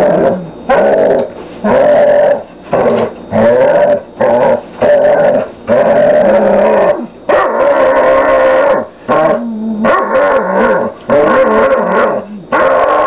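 A dog making a long run of drawn-out, pitched vocal calls while tugging on a toy, one call after another with short breaks between them.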